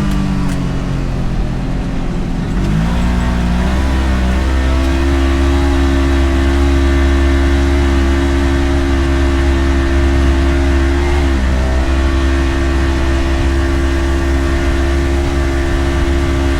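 Side-by-side UTV engine running under load over a deep rumble. Its pitch drops near the start, climbs again about three seconds in, then holds steady, with a brief dip about eleven seconds in.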